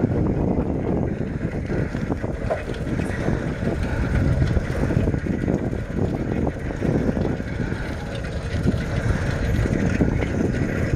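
Steady low rumble of a moving vehicle with wind buffeting the microphone.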